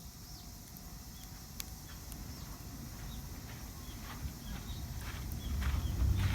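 A small bird chirping over and over in short calls, with a few soft knocks. A low rumble swells up near the end and becomes the loudest sound.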